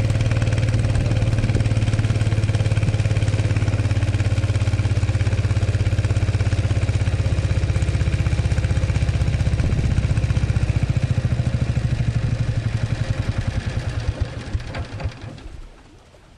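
Small river boat's engine running steadily with a fast, even pulsing beat, then slowing unevenly and cutting out about fifteen seconds in.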